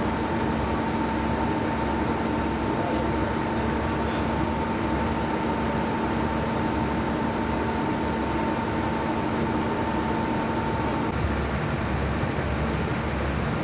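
Steady mechanical hum of a running engine, with a constant rushing noise underneath; the hum stops about eleven seconds in.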